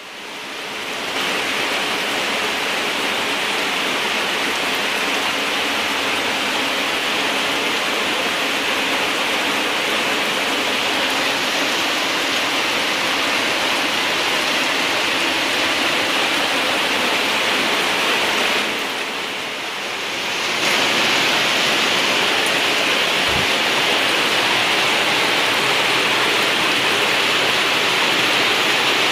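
Rain falling steadily, a dense even hiss of water, briefly quieter about two-thirds of the way through.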